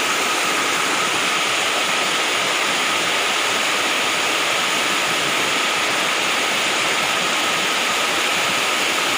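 Waterfall rushing in a loud, steady roar of falling water, with a faint steady high tone under it.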